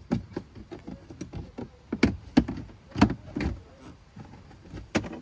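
A Subaru Ascent's cargo-area tray being worked loose by hand: an irregular series of sharp knocks and clatters, the loudest few in the middle and near the end.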